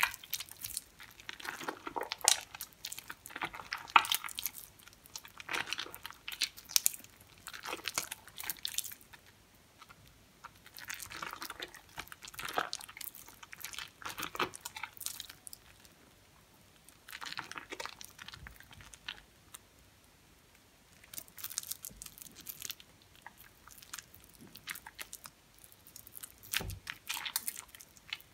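Soaked, mushy soap being squeezed and kneaded by hand in a bowl of soapy water: irregular wet squelching and crackling of the soft soap and foam, with a couple of brief lulls.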